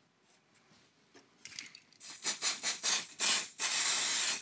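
Aerosol can of CA glue activator spraying over magnets glued into a wooden block: a run of short hissing spritzes from about halfway through, then a longer steady hiss near the end.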